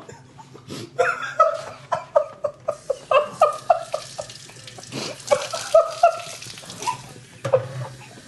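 Kitchen sink faucet running from about three seconds in as a woman rinses her mouth at the tap, over her repeated short bursts of laughter.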